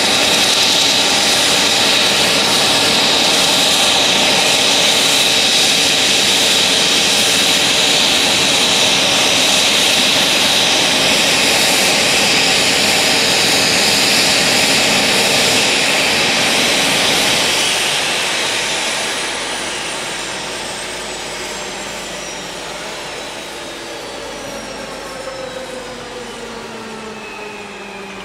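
Sikorsky S-76C+ helicopter running on the ground, its twin Turbomeca Arriel turboshaft engines giving a steady high whine over the turning main rotor. About eighteen seconds in the engines are shut down: the whine falls steadily in pitch and the sound fades as the turbines and rotor spool down.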